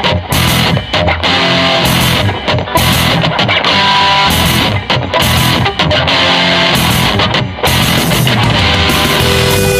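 Loud rock music driven by electric guitar, with short regular breaks in the riff.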